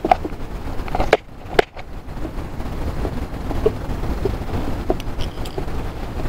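Small scattered clicks and taps of metal forceps and handling while a hook is worked out of a caught fish, with the two sharpest clicks about a second in, over a steady low rumble of wind and water.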